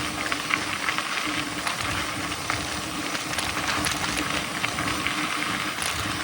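Mountain bike rolling downhill: tyres on a dirt trail, with a steady rush of noise, many small rattles and clicks from the bike and trail, and a faint steady hum underneath.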